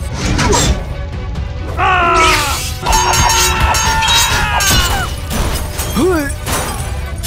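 Cartoon fight sound effects: a run of sharp hits and crashes with sliding pitched effects, one sweeping upward near the end, over background music.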